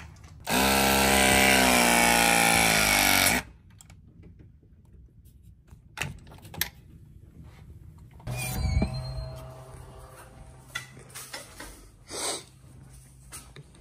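Battery-powered RLS (Klauke) press tool running through a press cycle, crimping an RLS press fitting onto copper refrigerant line. A loud motor whine lasts about three seconds and sags slightly in pitch near the end as the jaws close. A second, quieter motor run comes a little past the middle.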